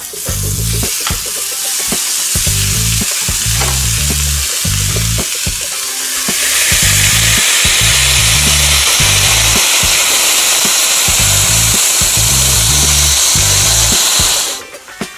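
Blackberries sizzling on the hot plates of an electric waffle iron: a steady frying hiss of juice and steam that grows louder about six seconds in and cuts off shortly before the end.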